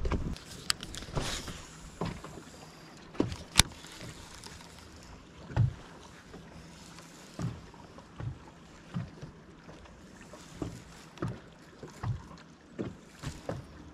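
Small waves slapping against a bass boat's hull in irregular soft knocks, about one every second or so, with one sharp click a few seconds in.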